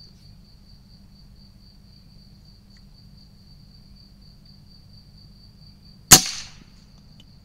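A single shot from an AirForce air rifle: one sharp crack about six seconds in, with a brief tail. A faint steady high trill runs throughout.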